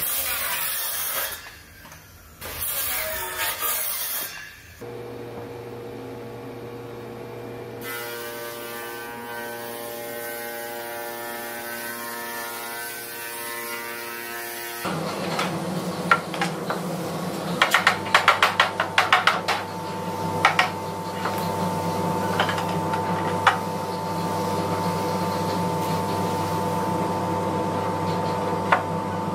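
Handheld circular saw cutting through a hardwood slab in two passes, then a woodworking machine running with a steady hum. Later the machine runs louder, with a series of sharp knocks and clicks from wood being handled.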